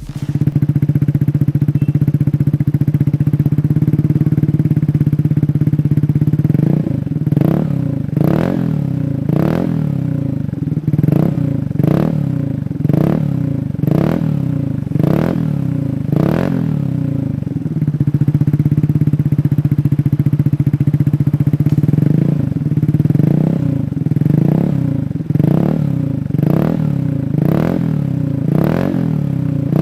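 Motorcycle with a Shijiro aftermarket racing exhaust idling steadily, then revved in quick throttle blips about once a second, each falling back to idle. It idles again about midway before another run of blips.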